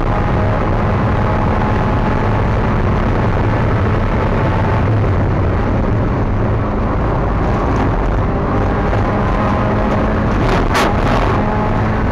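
Spec Miata race car's four-cylinder engine running hard at racing speed, heard from the cockpit with road and wind noise. A brief sharp burst of noise comes about ten and a half seconds in.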